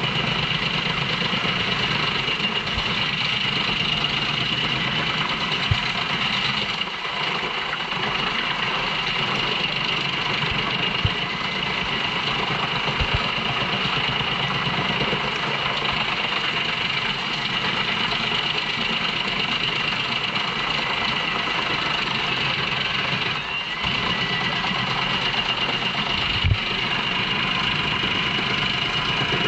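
JENZ HEM 593-R truck-mounted drum chipper running steadily under load as it chips poplar trunks fed in by its crane, with a few sharp knocks along the way.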